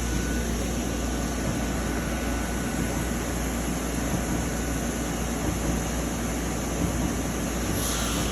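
Doosan DNM 200/5AX vertical machining center running under power: a steady low hum with an even hiss, and a short hiss near the end.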